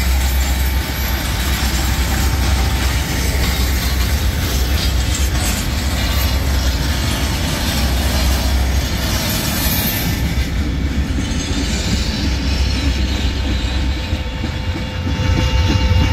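Freight train of hot-metal bottle (torpedo) cars rolling past, with a steady rumble and the clatter of many wheels over the rails.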